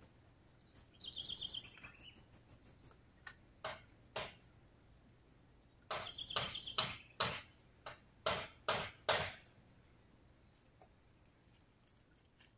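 Birds calling in trees: a pulsing, chirping call about a second in and again around six seconds, among a series of short harsh calls or sharp sounds between about four and nine seconds.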